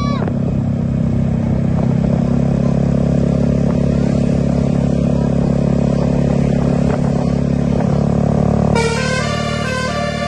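A large vehicle engine runs steadily. About nine seconds in, a bus's multi-tone 'telolet' horn starts, playing a stepping melody of several pitched tones.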